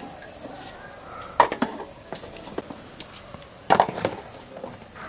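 Peeled shallots dropped into a plastic bowl: two sharp knocks about two seconds apart, each followed by a few lighter clatters.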